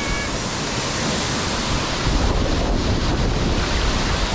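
Steady rushing noise of a waterfall and the churning pool water, with low wind buffeting on the microphone.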